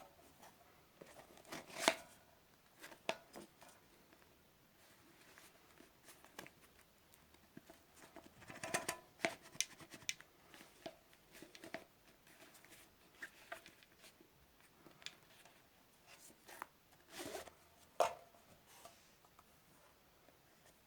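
Scattered handling sounds of a homemade cloth-and-plastic pouch being worked by hand: irregular clicks, taps and short rustles of cloth, with a few sharper clicks about two seconds in, in the middle and near the end.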